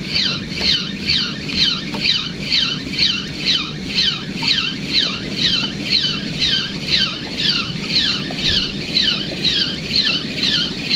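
A fishing reel being cranked steadily, giving a high squeak that glides downward about twice a second, turn after turn.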